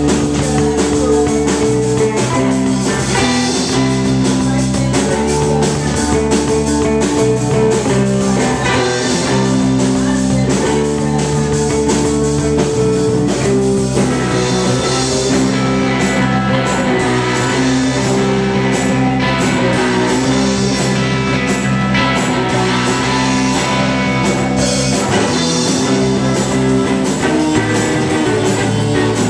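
Live rock band playing loudly: electric bass, electric guitar and drum kit, with held chords changing every second or two.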